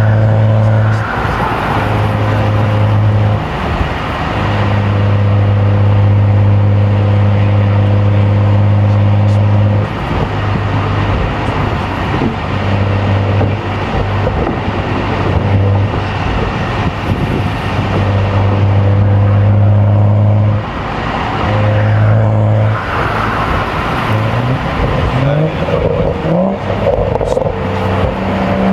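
BMW M235i's N55 turbocharged straight-six engine droning at steady revs in long stretches with short dips between them, then revving up in several rising sweeps near the end.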